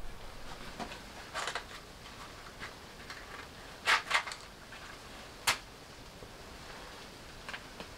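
Handling sounds at a small sheet-metal wood stove as the fire is being laid and lit: a rustle about a second and a half in, two sharp scraping knocks around four seconds, and a single sharp click about a second later, with a couple of faint clicks near the end.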